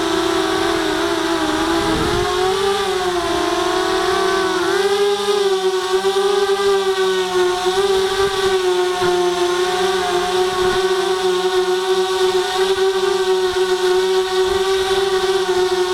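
Electric motors of a ZMR250 FPV racing quadcopter whining. The pitch wavers up and down as the quad comes in to land, then settles into a steady hum about five seconds in while it sits on the ground with the motors still spinning.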